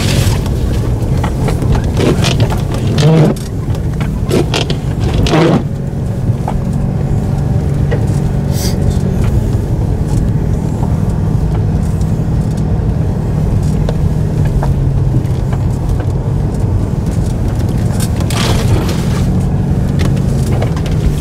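Off-road 4x4's engine running steadily under load, heard from inside the cab as it drives through deep snow. A few brief louder noises come in the first few seconds.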